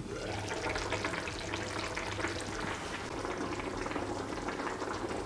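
Tomato sauce with minced meat and peppers simmering in a frying pan: a steady bubbling with many small pops.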